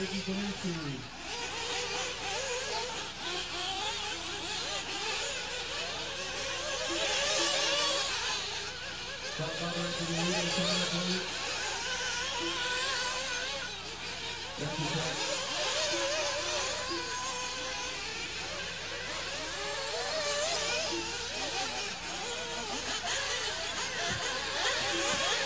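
Nitro RC buggies racing, their small two-stroke glow engines buzzing and revving up and down in pitch, swelling louder now and then as cars come close.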